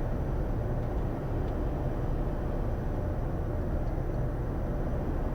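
Steady cockpit noise of a Bombardier Challenger 350 business jet on final approach: airflow and engine noise as an even low rumble with no change in level.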